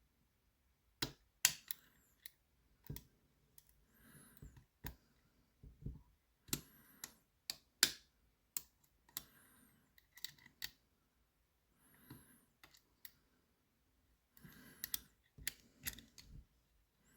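Lever pick and tensioner working in a Lowe & Fletcher 8-lever double-bitted safe lock: irregular sharp metallic clicks and short scrapes as the levers are probed and tensioned.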